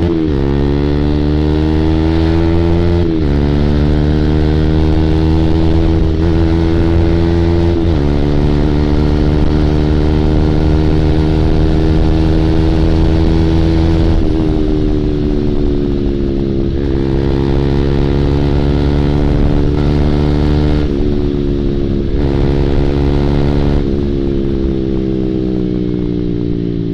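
Honda Supra GTR150's 150 cc single-cylinder engine accelerating through the gears: its pitch climbs and then drops at each upshift, about three, eight and fourteen seconds in. After that it holds a fairly steady cruise, with a few brief dips as the throttle eases.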